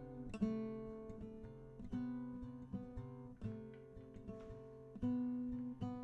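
Background music on acoustic guitar: plucked and strummed notes that ring and die away, one after another.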